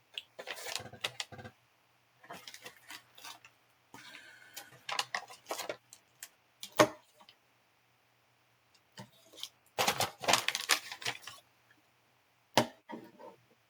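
Plastic coin capsules and shipping packaging handled on a table: bursts of clicking, tapping and rustling, with one sharp, loud click about seven seconds in.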